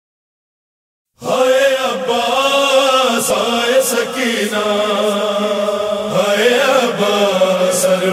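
Chanted vocal melody of a noha, a Shia lament, with long held notes that slide between pitches; it begins suddenly about a second in, after silence.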